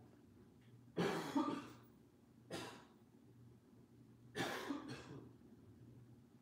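A woman coughing in three bouts, the first about a second in and the loudest.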